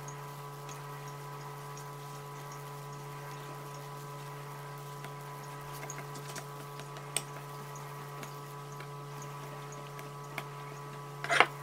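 A steady low hum with a few fainter higher tones above it, under faint regular ticks. A sharp click comes about seven seconds in and a short cluster of clicks near the end.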